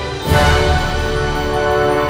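Film score music: held notes, with a sudden louder entry about a third of a second in that brings in deep low notes, then sustained chords.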